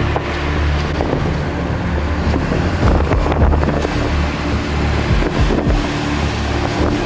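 Vehicle driving on the road: a steady engine and road drone with wind rushing over the microphone.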